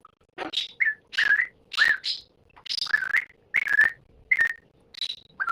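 Parrot calling in a rapid run of short, harsh, whistly squawks, roughly two a second.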